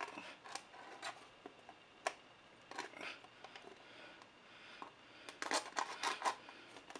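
Clear plastic packaging of a portable speaker being handled and worked at with a hand tool: faint, scattered clicks and scrapes, with a quick run of clicks about five seconds in.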